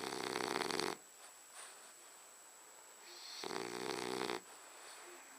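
French Bulldog snoring: two loud snores about three seconds apart, each lasting about a second, with quieter breathing between them.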